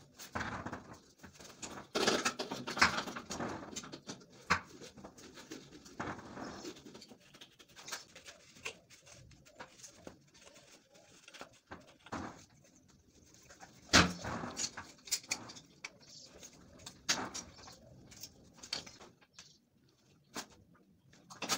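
Scattered knocks, clicks and scraping of hands and small tools working fittings on a tiled wall, in a small tiled room, with one sharp knock about two-thirds of the way through.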